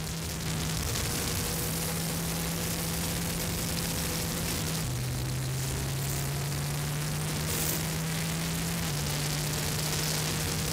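Wind rushing over the microphone of a motorcycle ridden at road speed, with the Yamaha Tracer 900 GT's inline-three engine humming steadily underneath. The engine note drops about five seconds in and rises again near the end.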